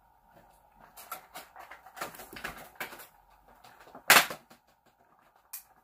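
Plastic packaging rustling and clicking as a vinyl Funko Pop figure is worked out of its box by hand, with one sharp, louder crackle about four seconds in.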